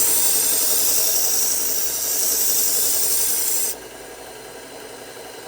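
A steel kitchen knife edge ground on a 120-grit 3M Cubitron belt of a 1x30 belt grinder, a loud even hiss that stops suddenly about three and a half seconds in as the blade comes off, leaving the grinder running. The pass raises a burr along the full length of the edge.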